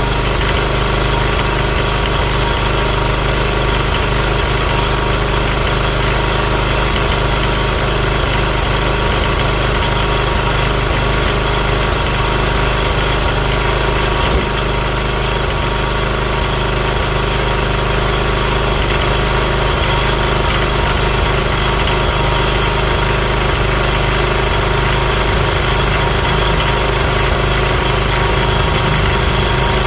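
Sears ST12 garden tractor's engine running steadily, with a slight dip about halfway through.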